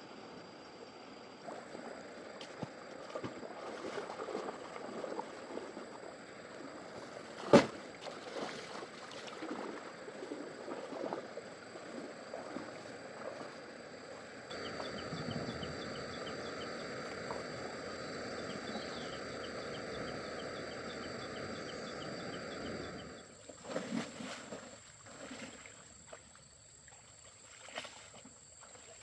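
Water splashing and lapping around a bamboo raft being paddled across a river. There is a sharp wooden knock about seven seconds in, a steadier rush of water through the middle, then scattered knocks and splashes near the end.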